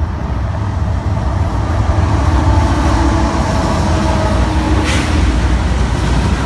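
BNSF train passing, a steady low rumble with faint tones above it and a brief hiss about five seconds in.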